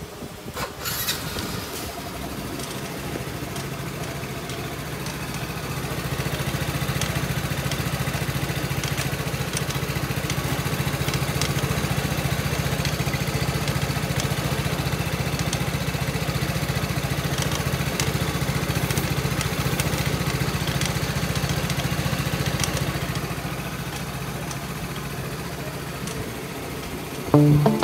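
Yamaha Cuxi 100 scooter's carburetted single-cylinder engine running steadily, a little faster for much of the time before settling back to idle near the end. The title blames the scooter's abnormal noise and its creeping forward at idle on a broken clutch spring.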